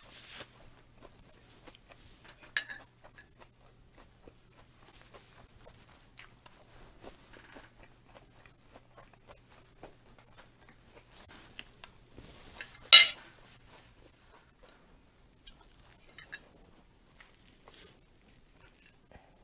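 Cutlery and a china plate clinking, with soft rustling and small clicks as fried chicken is handled at the table. One sharp clink comes a few seconds in, and the loudest, sharper one about thirteen seconds in.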